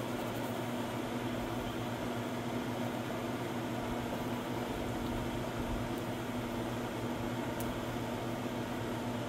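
A steady mechanical hum with a low drone that does not change.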